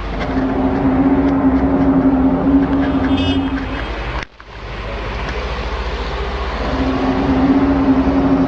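A loud, steady drone holding one low, trumpet-like note over rumbling noise: the unexplained 'trumpet sound from the sky'. It breaks off abruptly a little past four seconds, and the same note comes back near seven seconds.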